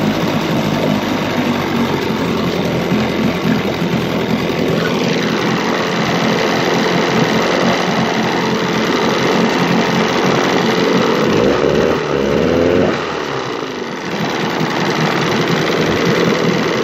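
1976 Johnson 25 HP two-cylinder two-stroke outboard running smoothly with its cowling off. About twelve seconds in its pitch rises, then it drops back and settles into its steady run again.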